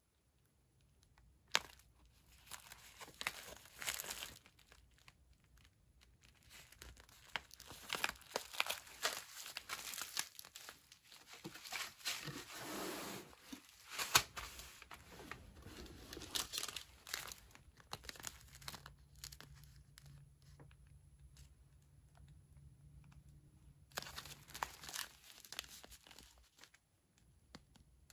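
Foil and plastic ration packets crinkling and rustling as they are handled and moved in and out of a cardboard box, in bursts with a few sharp clicks, busiest through the middle and again briefly near the end.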